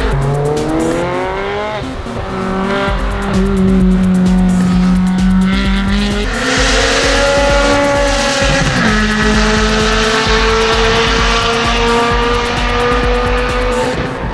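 Sports car engine accelerating hard through the gears. Its pitch climbs and drops sharply at shifts about 2, 6 and 9 seconds in, then holds steadier toward the end.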